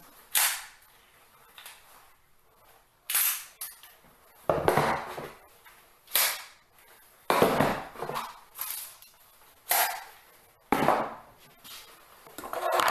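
A handgun being handled: about ten sharp clicks and clacks at irregular intervals.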